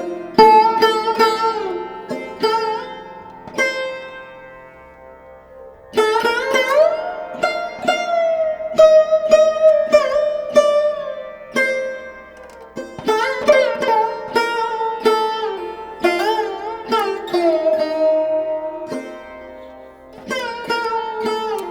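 Background music of a sitar-like plucked string instrument over a steady drone, its notes bending in pitch; it fades out about four seconds in and begins a new phrase about six seconds in.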